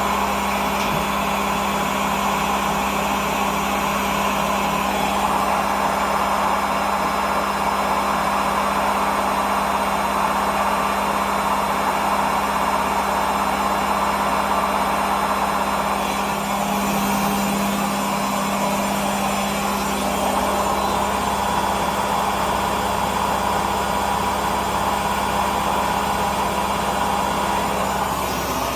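Haier HW60-10636A washing machine spinning at 1000 rpm: a steady motor hum with a constant low tone over the rushing noise of the fast-turning drum.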